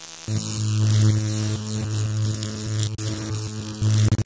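Electrical hum and buzz sound effect with crackling static, for a neon-style logo reveal. It drops out briefly a couple of times and stutters off and on rapidly near the end, like a flickering neon sign.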